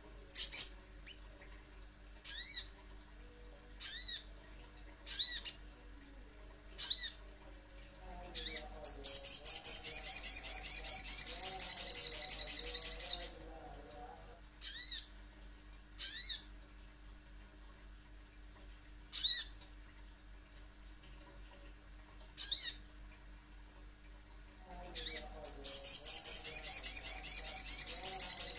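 Sogon (sogok ontong) bird song: short, sharp, high call notes every one to two seconds, broken twice by several seconds of loud, fast, high trilling. A faint steady hum lies beneath.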